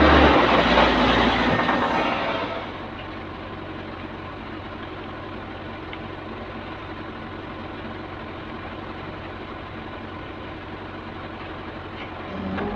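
Komatsu WA350 wheel loader's diesel engine working hard while its tipped bucket pours gravel into a dump truck bed, dying down about two and a half seconds in. After that a diesel engine idles steadily, rising slightly near the end.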